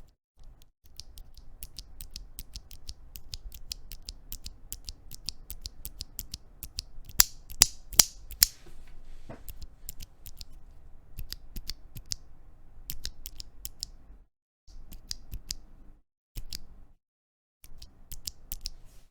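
Stock, unlubricated Cotton Candy tactile mechanical keyboard switches (JWK, nylon housings, dry from the factory) pressed and released repeatedly close up, giving a quick run of light clicks and clacks. There is a handful of louder clacks about seven to eight seconds in, and a few brief silent breaks near the end.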